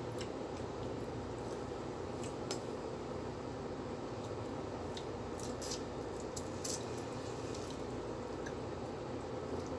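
Eating sounds: a few scattered small clicks and crackles as food is picked apart by hand, over a steady low background hum.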